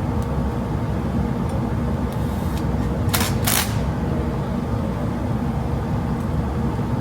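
Steady low drone of a shop fume-extractor fan running. About three seconds in come two short, sharp noises half a second apart, likely bolts being set into the steel welding fixture.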